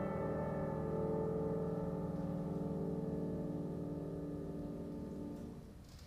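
Grand piano ringing out on a held closing chord of a solo jazz ballad, slowly dying away and fading out about five seconds in.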